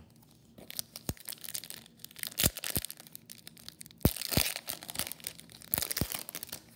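Foil wrapper of a Topps Chrome baseball card pack being torn open and crinkled by hand. Several sharp knocks come among the crackling.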